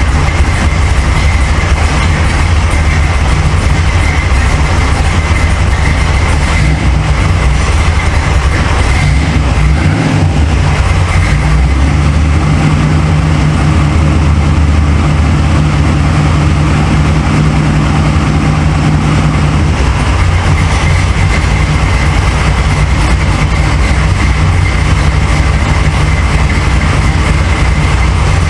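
1977 Chevrolet Corvette's L82 350 V8 engine running steadily, its note shifting a little about ten seconds in and again midway.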